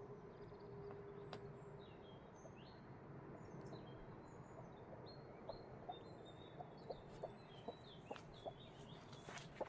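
Broody hen clucking softly: short, low clucks about twice a second, starting about five seconds in. Faint high chirps and, for the first two seconds, a faint steady hum sit underneath.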